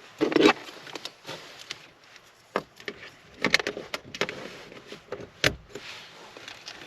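Handling noise: irregular clicks, knocks and light rattles of hands working with equipment. The loudest knocks come about half a second in and again about five and a half seconds in.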